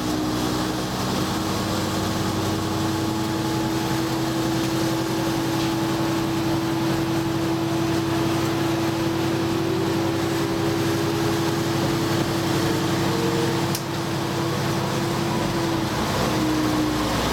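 Diesel railcar running along the track, heard from inside the car behind the driver's cab: a steady engine hum with a faint higher tone that rises in pitch about ten seconds in.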